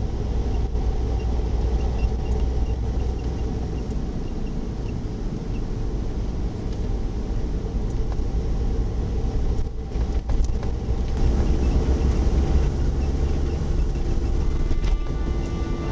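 In-cabin sound of a Suzuki Jimny JA11 on the move: its small three-cylinder turbo engine and road noise make a steady low rumble.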